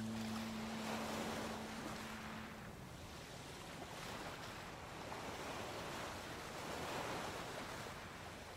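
Small waves washing in on a sandy shore, the surf swelling and ebbing about every three seconds. The last low note of a piece of music fades out over the first couple of seconds.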